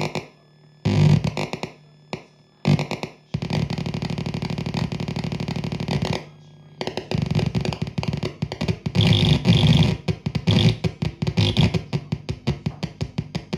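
A DIY-built Ciat-lonbarde Old Mr Grassi touch synth played with fingertips on its brass pins: distorted, gritty electronic noise over a low drone that cuts out and back in as the fingers lift and touch, breaking into rapid stuttering pulses in the second half.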